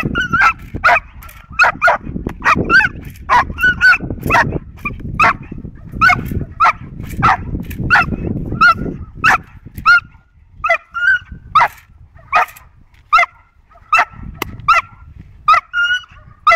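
Five-and-a-half-month-old Belgian Malinois puppy barking again and again in short, sharp, high barks, about one to two a second, as she is held back on a harness and teased with a rag in bite-work training. A low rumble of noise runs under the barks until about two-thirds of the way through.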